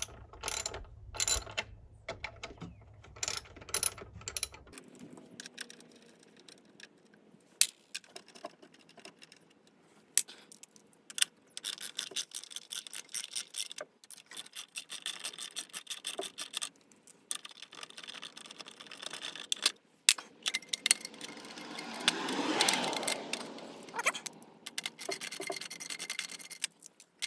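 Socket ratchet wrench clicking in quick runs while bolts are loosened, with scattered taps of metal tools and parts. A louder stretch of rubbing and scraping comes a little past the middle.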